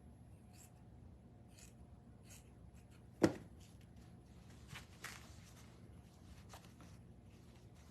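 Soft rustling and handling of craft materials on a work table, with one sharp knock about three seconds in and a few lighter clicks after it.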